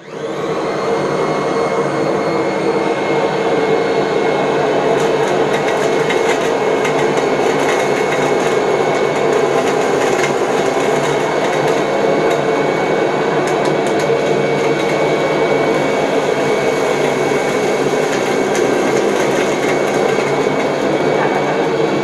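Kirby G3 upright vacuum switched on, its motor spinning up within about a second to a steady, loud whine. It runs in straight-suction mode with the brush roll and belt removed. A few brief clicks sound over it.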